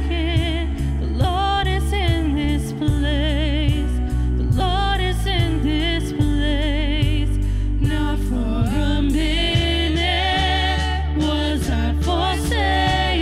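Live worship band: several singers holding sustained, vibrato-laden notes over a drum kit, piano and a steady deep bass line.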